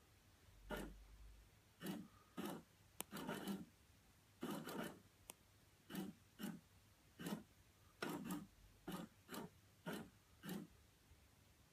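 PetSafe FroliCat Cheese toy's motor moving its mouse between the holes, heard as faint short noisy bursts, irregular, roughly one or two a second, with a couple of sharp clicks among them.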